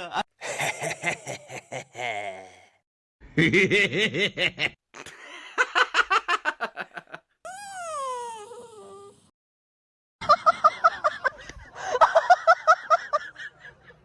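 Human laughter in several short bursts, cut one after another, with rapid pulsed giggling near the end and a single long falling call in the middle.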